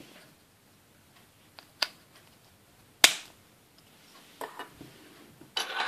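Small hard-plastic Playmobil parts being handled and snapped together by hand while a little round table is put together: a few sharp clicks, the loudest about three seconds in, with light plastic rattling near the end.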